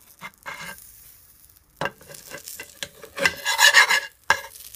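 Metal spoon scraping and pushing a lump of butter around a non-stick frying pan while the butter sizzles as it melts, with a few knocks of the spoon against the pan. The scraping and sizzling are loudest about three to four seconds in.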